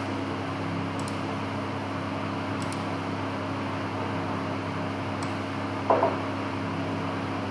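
Steady low hum and hiss of background room noise, with a few faint computer-mouse clicks and one louder short click about six seconds in.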